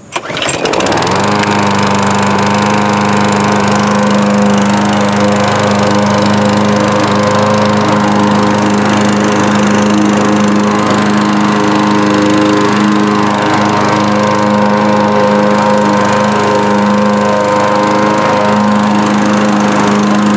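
Briggs & Stratton 6.75 hp single-cylinder four-stroke lawn mower engine starting right away, revving up within about a second and then running steadily at speed. It is running again now that the carburetor's swollen inlet needle valve seat has been replaced.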